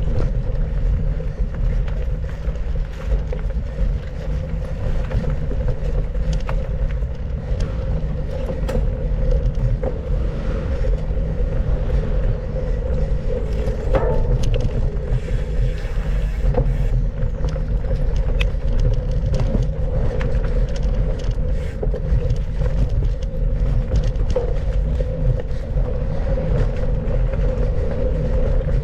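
Mountain bike riding over a dirt trail: a steady low rumble of wind on the microphone, with frequent small rattles and knocks from the bike over the ground.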